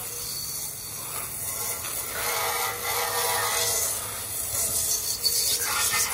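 Garden-hose spray nozzle hissing as it jets water onto a metal motorcycle part, rinsing off chemical paint stripper. The spray gets a little louder about two seconds in.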